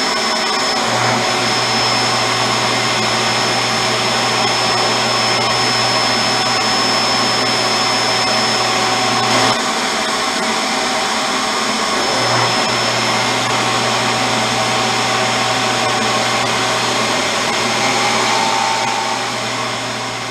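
Table saw running steadily while a piece of MDF is ripped to width and then crosscut to length. A low note comes in about a second in, drops out briefly just before halfway, and returns about twelve seconds in.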